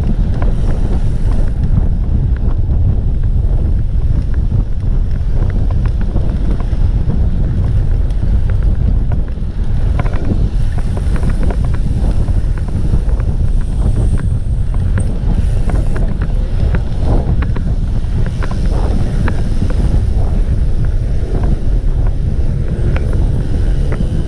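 Steady heavy wind rumble buffeting the microphone of a handlebar-mounted camera on a road bike moving at speed, with scattered faint ticks and clicks around the middle.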